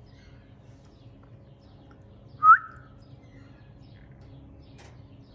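Rose-ringed parakeet giving one short, rising chirp about halfway through.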